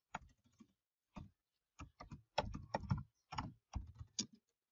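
Computer keyboard typing: irregular keystrokes, a short pause about half a second in, then a quicker run of keys.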